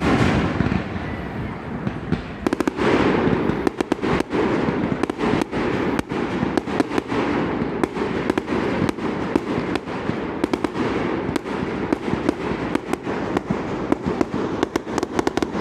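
Aerial fireworks show: one loud bang at the start, then from about two and a half seconds in a dense, continuous barrage of rapid bangs and crackles from shells bursting close by.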